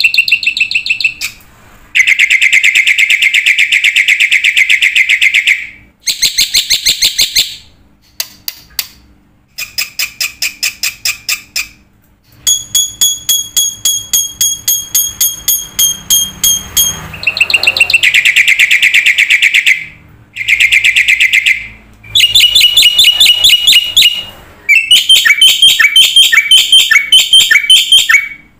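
Bird song: a string of loud, high-pitched phrases of rapid trills and repeated notes, each lasting a second to a few seconds, with short pauses between them and changing pattern from phrase to phrase.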